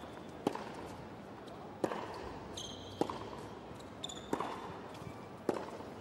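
Tennis rally on a hard court: racquets striking the ball five times in turn, about one hit every second and a quarter. Short high squeaks between shots come from shoes on the court surface.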